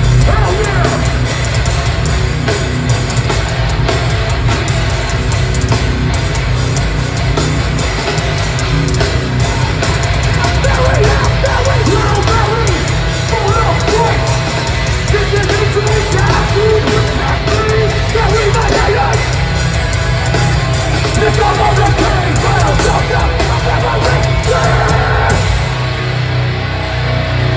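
Hardcore band playing live through a concert PA: heavy distorted guitars, bass and drums with shouted vocals, loud and boomy in the low end. The sound thins out near the end.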